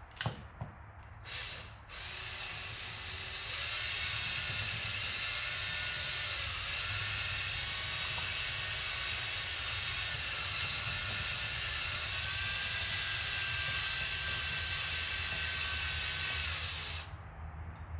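Electric drill spinning a zip-tie mixer on a drill extension, stirring two-part silicone rubber. It starts about two seconds in, picks up speed shortly after, and runs steadily with a whine that shifts a little in pitch before stopping near the end.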